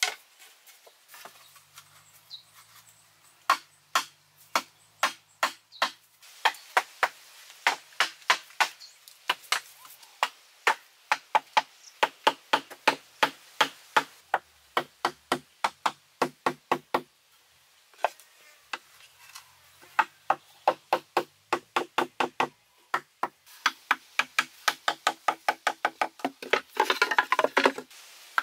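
Sickle knife chopping and knocking on hollow bamboo poles: a run of sharp strikes, two to four a second with short pauses, many ringing with a brief hollow tone. Near the end the strikes come quicker and rougher.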